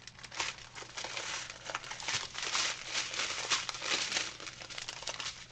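Clear plastic bags of diamond painting drills crinkling as they are handled, a continuous run of sharp little crackles.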